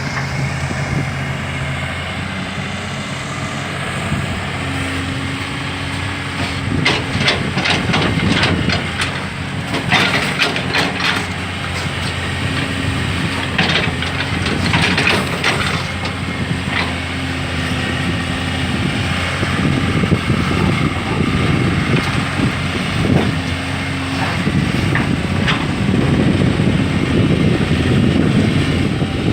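Hydraulic excavator's diesel engine running steadily, with a hydraulic whine that comes and goes as it works. A run of sharp metallic clanks and scrapes sounds from about a quarter to halfway through.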